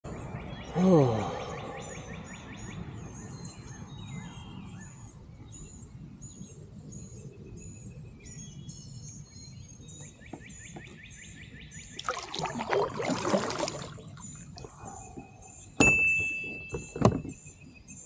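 Small birds chirping over and over in high, quick notes. A loud falling call comes about a second in, a louder noisy stretch follows around twelve seconds, and two sharp knocks come near the end.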